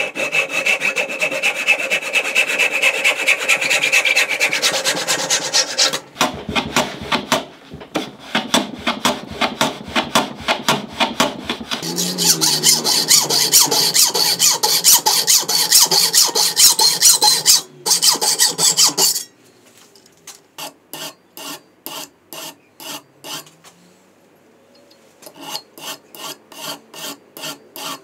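Hand sawing. First a brass-backed backsaw cuts wood in quick strokes. Then a hacksaw cuts a workpiece clamped in a metal bench vise, with bright, loud rasping strokes. After a sudden drop, slower, quieter strokes follow at about two a second.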